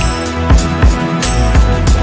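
Background music with a steady drum-kit beat: bass drum hits and cymbal strokes over held instrumental tones.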